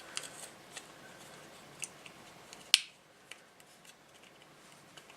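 Small parts of a handheld radio being handled and fitted by hand: scattered light clicks and rustles, with one sharp click a little past halfway.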